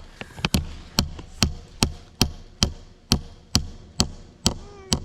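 Hammer repeatedly striking the top of a peeled wooden fence post to drive it into the ground, about two and a half sharp blows a second in a steady rhythm.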